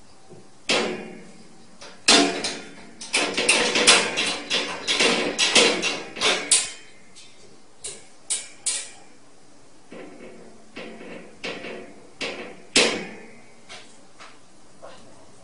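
Metal slide latch and wire door of a steel kennel rattling and clicking as a cat paws and pulls at the latch. There is a dense run of knocks and rattles in the first half, then scattered single clicks.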